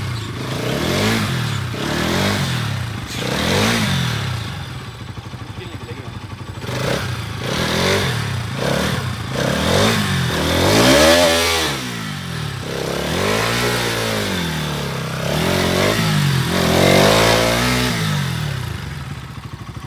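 Bajaj Pulsar NS200's single-cylinder engine revving up and down over and over as the motorcycle is pushed through deep clay mud, throttle given to keep traction. The revs get longer and higher in the second half.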